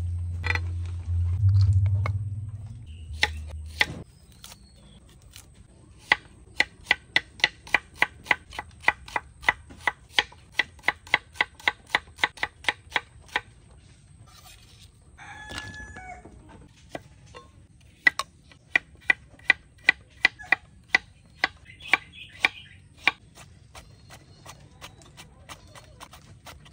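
Knife chopping on a cutting board in steady, even strokes, about four a second, in two long runs. Between the runs a rooster crows once. A low hum opens the stretch and cuts off about four seconds in.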